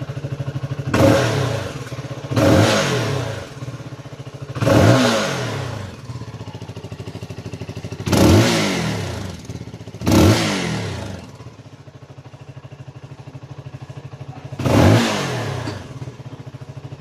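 CFMoto 300NK's single-cylinder engine with its stock exhaust, idling and revved in six short throttle blips, each rising quickly and falling back to idle.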